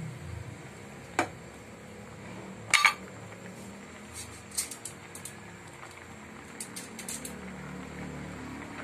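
Kitchen utensils knocking against an enamel saucepan: a sharp click about a second in, a louder double knock near three seconds, then a run of light clinks.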